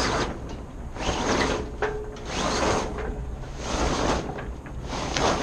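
Mainsail being rolled into a Selden in-mast furler: sailcloth and furling gear rustling and rubbing in repeated swells a little over a second apart, as the furling line is hauled in.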